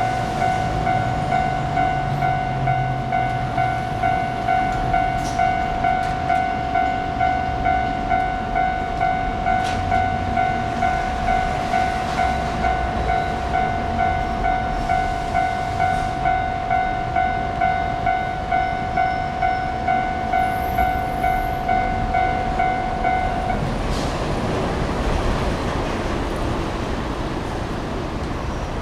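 Japanese railway level-crossing warning bell, an electronic 'kan-kan' alarm, ringing in a fast, even rhythm. It cuts off abruptly about 24 seconds in, leaving steady background noise.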